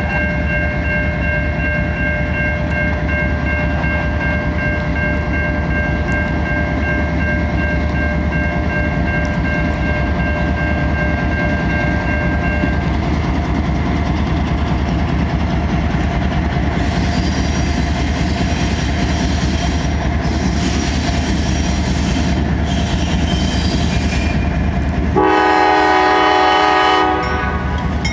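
Train rolling by with a steady low rumble of diesel locomotives and wheels on rail. A set of steady high tones holds for about the first thirteen seconds, and near the end a loud train horn sounds for about two seconds.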